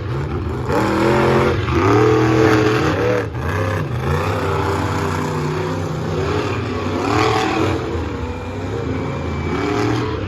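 Monster truck engines racing at full throttle, their pitch rising and falling again and again as the drivers get on and off the throttle.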